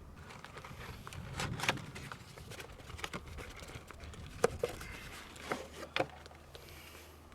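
A handful of scattered light clicks and knocks, the sharpest pair about four and a half seconds in, over a low steady hum.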